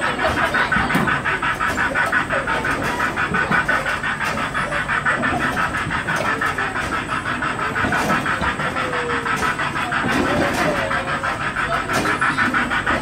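Carousel running, with a fast, even chugging pulse of about five or six beats a second from its drive as it turns.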